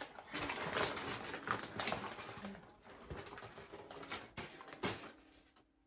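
Packing wrap rustling and crinkling as a wrapped mineral specimen is unwrapped by hand, with a few sharp crackles; busiest in the first couple of seconds, then quieter toward the end.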